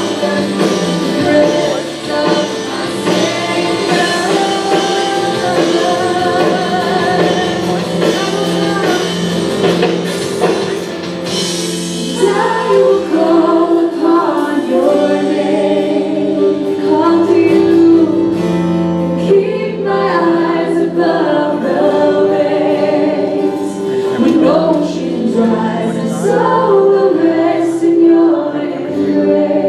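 Live contemporary worship music: singers over a full band, which drops back to a quieter accompaniment about twelve seconds in while the singing carries on.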